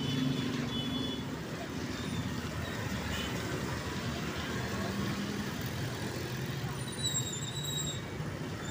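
Motorcycles and scooters passing close on a wet road: a steady mix of small-engine hum and the hiss of tyres on wet asphalt.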